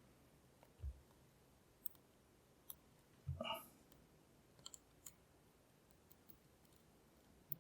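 Faint, sparse clicks of a lock pick tapping the pins of a Lockwood V7 padlock held under stiff tension, with a soft thump about a second in.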